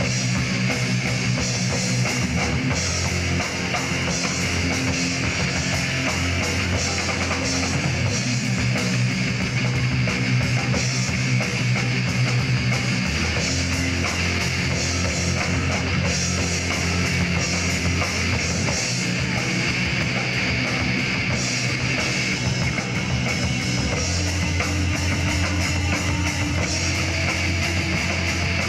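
Live heavy rock band playing: electric guitars, bass and drum kit together, loud and continuous, the bass line shifting every few seconds.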